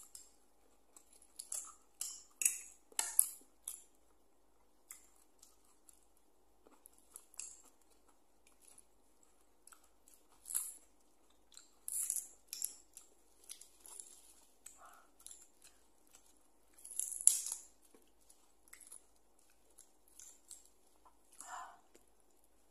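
Close-up eating sounds: irregular crisp smacks and crunches of chewing, with fresh lettuce leaves torn by hand partway through.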